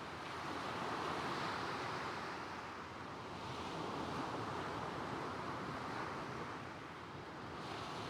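Gentle waves breaking and washing over a pebble beach, with a soft wind; the surf swells and eases every few seconds.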